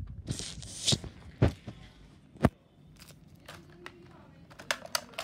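A plastic bag rustling and crinkling as it is rummaged through. Several sharp knocks and clicks of handling follow, with a quick run of clicks near the end.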